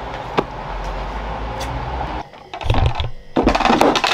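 Close handling noise of a bottle being moved right by the microphone: several sharp knocks and rustles. Before them, a steady low room hum with a single click cuts off abruptly about two seconds in.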